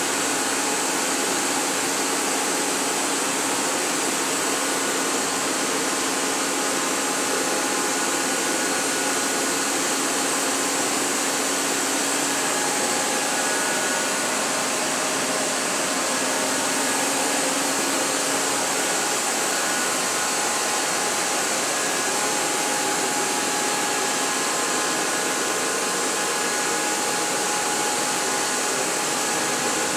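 Matsuura RA1 CNC vertical machining center powered up and running: a steady whirring hiss with faint steady hums over it, a low hum dropping out about two-thirds of the way through.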